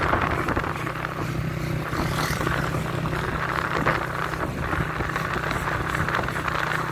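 A vehicle's engine humming steadily as it drives, with road and wind noise.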